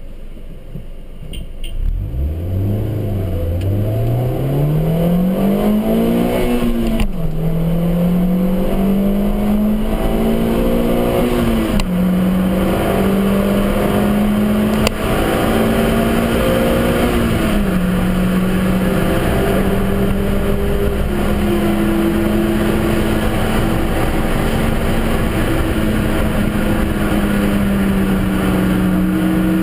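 Suzuki Swift Sport's 1.6-litre four-cylinder engine heard from inside the stripped-out cabin, revving up through the gears. The pitch climbs and then drops at each upshift, about seven and twelve seconds in, before holding a mostly steady high note at speed.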